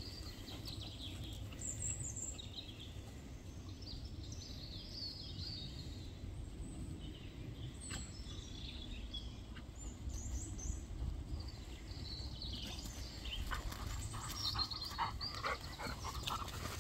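Scattered bird chirps over a steady low rumble of wind on the microphone.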